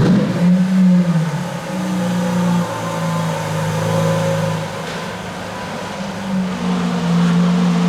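Lamborghini Countach LPI 800-4's V12 engine running loud, coming in suddenly at the start, then holding a steady note. The note drops a little in pitch in the middle and rises again near the end.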